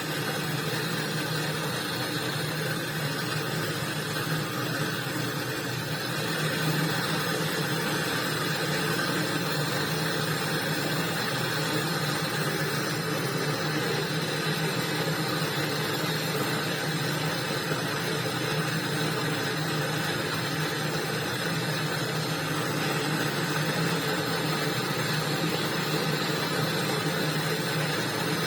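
Small electric motor running steadily with a low hum, getting a little louder about six seconds in.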